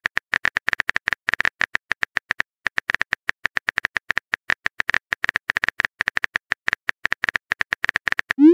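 Texting-app keyboard sound effect: a rapid run of identical synthetic key-tap clicks, one per typed letter, about eight a second with a brief pause. Right at the end a short rising swoosh begins, the app's message-sent sound.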